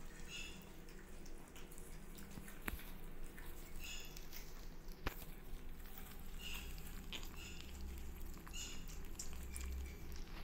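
Kittens eating cat food: faint wet smacking and lapping, with a few brief high squeaks scattered through.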